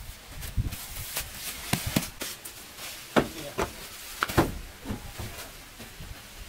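A run of irregular, sharp knocks and clicks, about eight in all, from objects being handled. The loudest come a little after three seconds in and just past four seconds.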